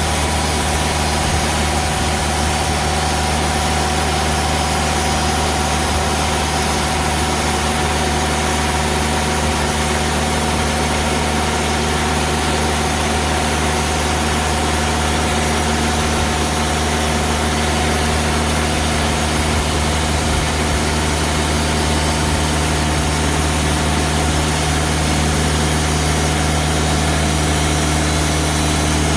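TimberKing 2000 band sawmill's diesel engine running steadily under load as the band blade cuts a slab from a large ash log.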